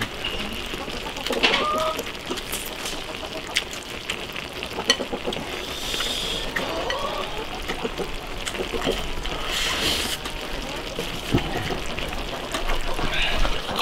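Close-up eating sounds: chewing crisp beef tripe and rice, slurping, and chopsticks clicking against a bowl, with chickens clucking in the background.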